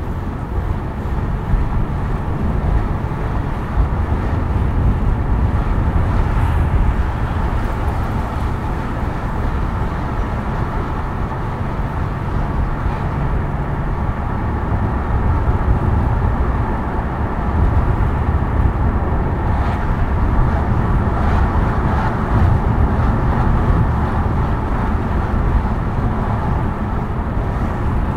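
Car driving on city roads: a steady rumble of tyre and road noise with engine hum, strongest in the low end.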